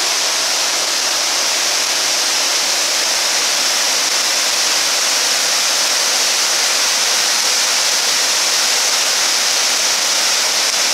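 Waterfall: white water pouring over rock ledges in a steady, loud rush.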